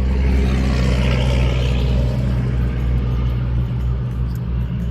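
A motor vehicle passing on a nearby road: a loud, steady low engine rumble whose noise swells about a second in and then slowly eases off.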